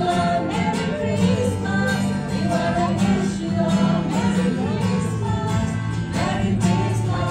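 A small group of men's and women's voices singing a song together, accompanied by a strummed acoustic guitar.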